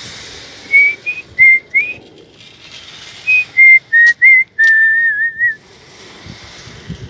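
A woman whistling a short tune through pursed lips: a string of brief clear notes near the same pitch, some sliding upward, ending in one longer wavering note about five seconds in.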